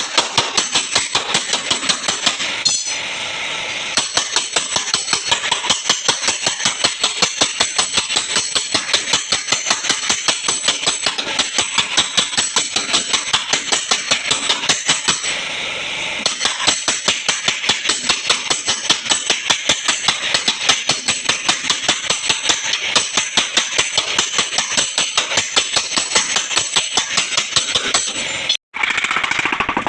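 Hammer tapping on a car's sheet-metal body panel to work out accident dents: rapid, even metal strikes, about five a second, with brief pauses about three seconds in and about halfway, over a steady high hiss.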